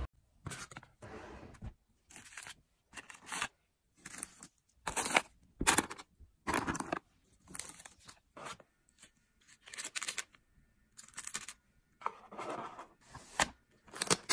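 Packaging handled by hand while an order is packed: about a dozen short, separate noisy bursts with near-silent gaps between them, the loudest about five to six seconds in.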